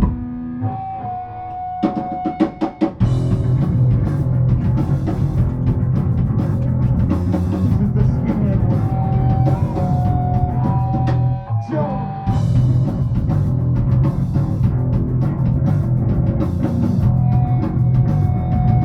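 A rock band playing live, with distorted guitar, bass and drum kit. After a sparser opening, a string of drum hits about two seconds in leads into full, heavy playing from about three seconds in, with a brief break near the middle.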